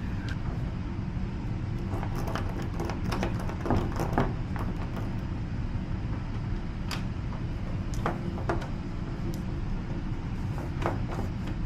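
Scattered metallic clicks and rattles from a door knob and its lock being worked by hand, with the knob not turning to open. A steady low hum runs underneath.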